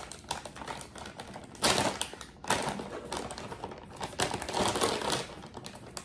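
Crinkling and rustling of a plastic food pouch being pulled open by hand, in irregular bursts of crackle, several of them louder than the rest.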